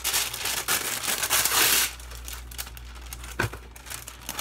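Wax paper crinkling and rustling as it is handled and pressed into a baking pan, loudest in the first two seconds. A single light knock comes about three and a half seconds in.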